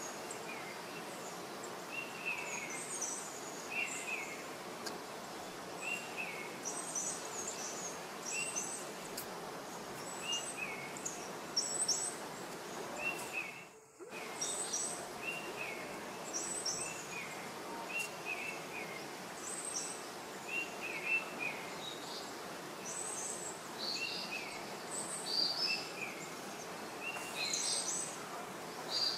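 Small birds chirping over and over in short calls, about one or two a second, above a steady hiss of forest background noise. The sound dips out briefly about halfway through.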